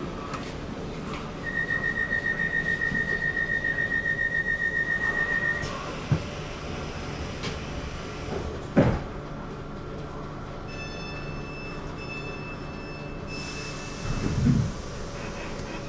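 A station dispatch whistle blows one long, steady, high blast with a fast flutter for about four seconds. A sharp knock follows, then a quieter broken high tone for a couple of seconds, all over the steady hum of a Class 455 electric multiple unit standing at the platform.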